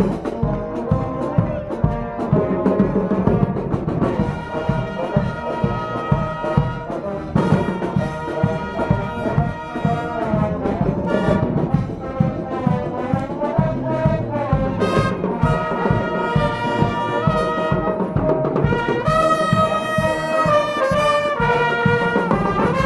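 Dutch dweilorkest (street brass band) playing live: trumpets and trombones over a steady drum beat.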